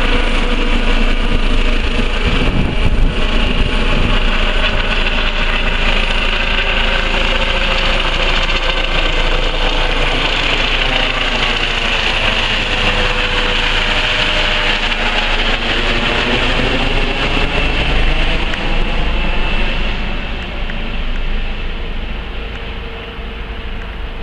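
Eurocopter EC135 air ambulance helicopter flying overhead: turbine whine and rotor sound, loud and steady, then fading over the last few seconds as it climbs away.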